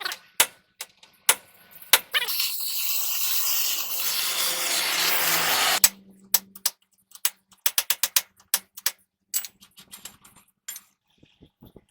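Hand tools clinking and knocking on metal parts, with a steady hiss lasting about three and a half seconds in the middle, then a quick run of sharp clicks.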